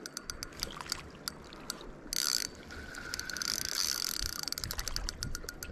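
Okuma Fuel Spin 1000 spinning reel clicking in irregular runs of ratchet-like clicks while a large hooked salmon is played on light line. The clicks come faster near the end, and there is a brief rush of noise about two seconds in.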